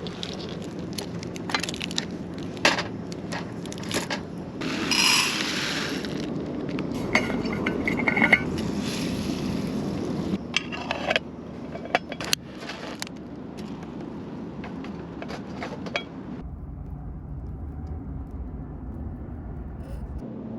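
Repeated clinks, knocks and scrapes of dishes and utensils being handled. About sixteen seconds in it cuts abruptly to a steady low rumble.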